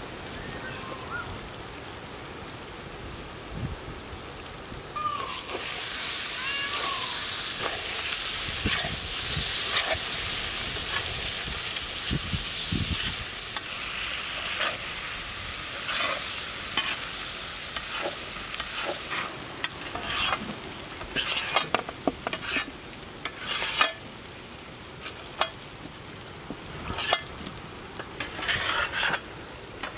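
Prawn masala sizzling on a large iron tawa while a metal spatula stirs and scrapes across it. A steady frying hiss builds a few seconds in, and sharp scraping clicks come thicker in the second half.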